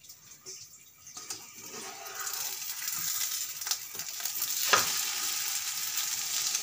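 Potato omelette frying in ghee in a nonstick pan on low heat: a sizzle that builds up over the first two seconds and then runs steadily, with one sharp knock of the metal slotted spatula against the pan as the omelette is flipped.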